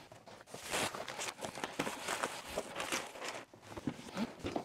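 Paper and cardboard packaging of a MacBook Pro box rustling and scraping as it is handled, in an irregular run of crinkles and small knocks.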